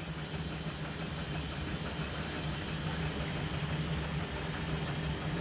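Steamer Leviathan's steam engine running under way: a steady low mechanical hum that grows slightly louder as the boat is brought up to speed.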